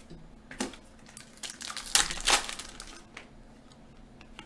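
Hands tearing open a hockey card pack, the wrapper crinkling and crackling in a few bursts, loudest about two seconds in.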